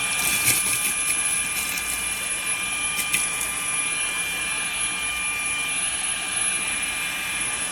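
Fanttik Slim V8 APEX cordless car vacuum running at its higher suction speed: a steady high-pitched motor whine over rushing air.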